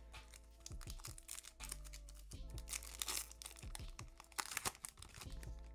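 A foil Yu-Gi-Oh! booster pack wrapper crinkling and tearing open, with a longer rip about three seconds in, over soft background music.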